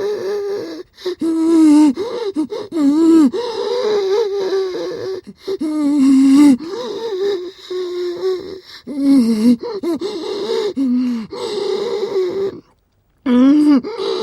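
Mummy creature sound effect: a voice groaning in a run of short drawn calls that bend up and down in pitch, broken by a brief silence near the end.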